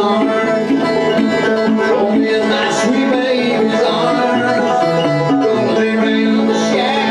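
Banjo and electric guitar playing an uptempo bluegrass tune together, an instrumental stretch without singing.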